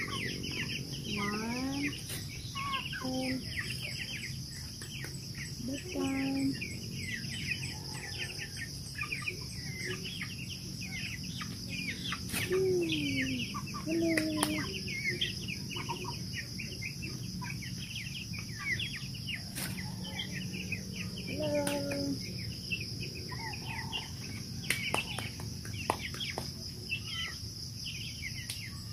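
Broiler chickens clucking, with short squawks scattered through and many brief high chirps, as they are caught and put into a cage for the night. A steady high insect drone runs underneath, with a few sharp knocks.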